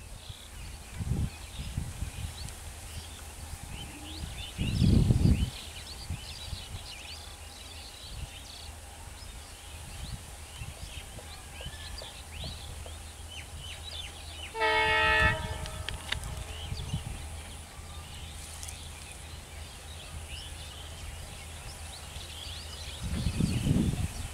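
Diesel locomotive horn sounding once for about a second, a little past the middle, over a steady low rumble. A louder low rumble rises briefly about five seconds in and again near the end.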